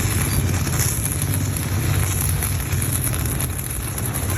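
Stick welding with a 3.2 mm electrode on an inverter arc welder: a steady crackling, frying arc over a low hum.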